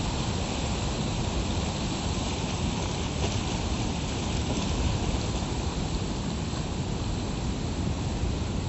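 Rough sea surf breaking and washing up the beach in a steady rush, with wind buffeting the microphone.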